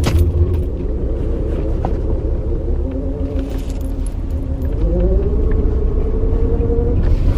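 Car engine and road rumble heard from inside the cabin while driving, the engine note rising about five seconds in as the car speeds up.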